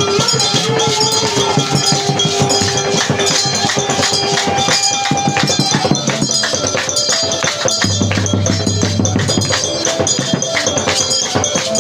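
Live church praise music: a fast, busy rhythm on drums and hand percussion under long held melody notes, with a deep bass note entering about two-thirds of the way through.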